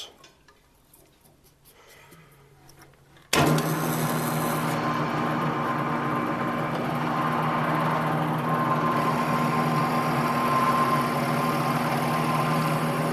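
Drill press switched on about three seconds in and running steadily while holes are bored into a bass neck for threaded inserts.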